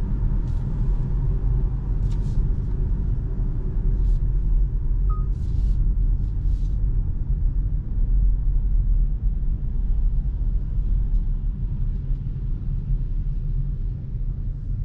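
Cabin noise of a 2025 MG HS SUV driving on a wet street: a steady low rumble of tyres and engine, with a few short hissing sounds in the first seven seconds. The rumble eases a little near the end as the car slows in traffic.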